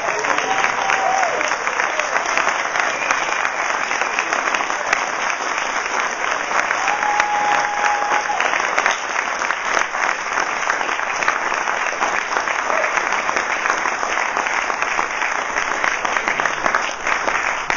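Audience applauding steadily, a long, sustained round of clapping.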